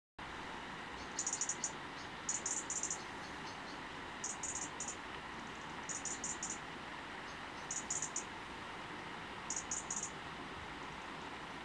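A cricket chirping: short, high-pitched chirps of three or four rapid pulses, repeating every second and a half or so over a steady background hiss.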